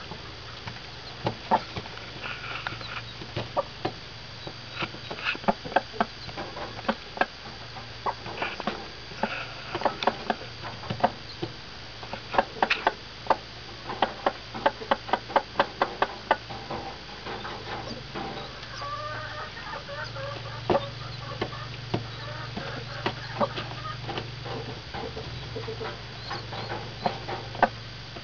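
Day-old pheasant chicks peeping in many short, sharp calls, thickest in the middle, over the low, steady clucking of a broody Copper Black Marans hen.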